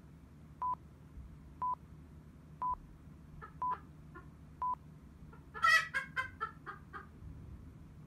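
Five short electronic countdown beeps about a second apart, then a Japanese bantam (chabo) chicken calls loudly in a quick run of about six clucks.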